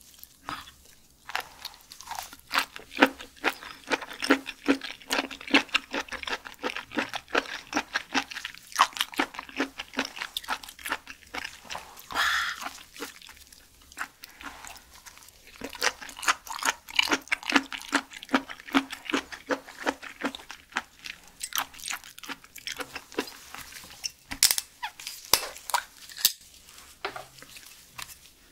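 Close-miked chewing of raw shellfish: a run of crisp, wet crunching clicks, several a second, with a few short pauses between mouthfuls.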